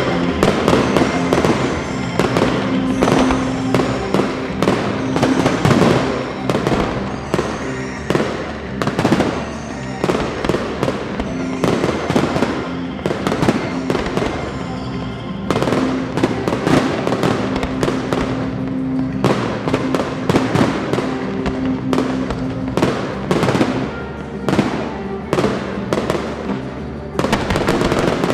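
Fireworks display: a dense, continuous string of bangs and crackling bursts from aerial shells, with music playing underneath.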